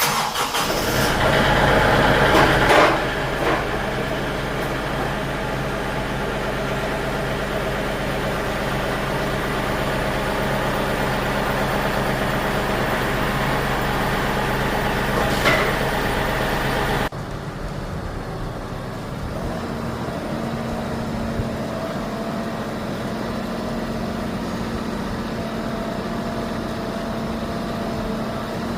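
Diesel engine of a KIOTI NS 6010 compact tractor running steadily under way, louder for the first few seconds. About two-thirds of the way in the sound changes abruptly, going lower and quieter.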